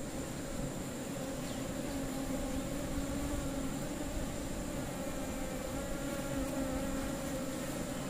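Steady buzzing hum of a mass of honeybees crowding the exposed frames of an opened hive, heard close up.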